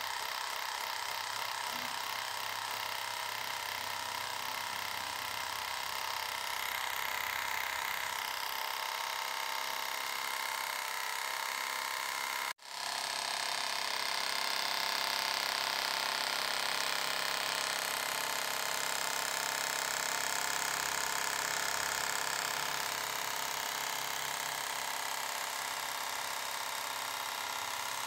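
Small 5-volt DC motor running steadily, driving a homemade balloon-diaphragm air pump. The sound cuts out briefly about twelve seconds in, then carries on.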